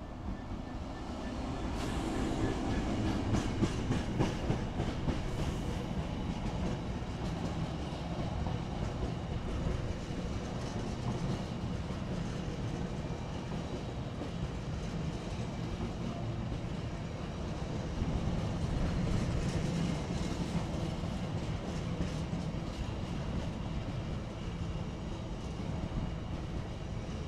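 A Freightliner Class 66 diesel-electric locomotive, with its two-stroke V12 engine, passes and is followed by a long train of empty container flat wagons rolling by with a steady rumble. The wheels click over the rail joints, most densely from about two to six seconds in.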